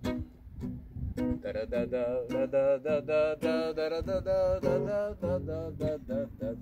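Acoustic guitar strummed and picked in an instrumental passage between verses, with a man's wordless singing on long, wavering held notes through the middle of the passage.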